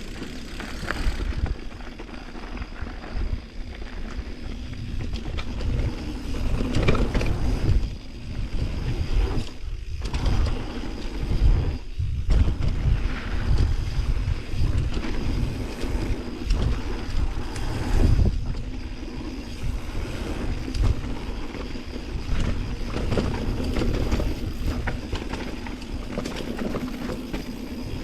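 Wind buffeting the microphone over the rumble and rattle of a mountain bike riding down a rough trail, surging and easing as speed changes.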